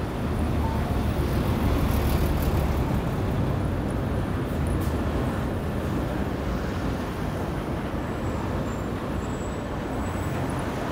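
Steady low rumble of vehicle noise, with no clear single event.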